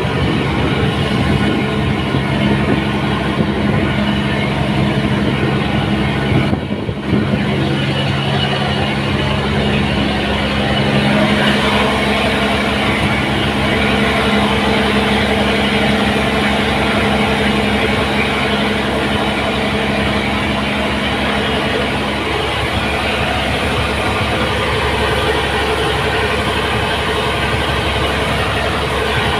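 A heavy engine running steadily with a low drone; its pitch shifts about two-thirds of the way through and a higher hum comes in.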